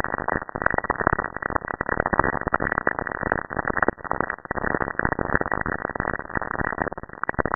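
Saturn's radio emissions, recorded by a spacecraft and converted to sound: a dense crackling hiss packed with sharp clicks and pops.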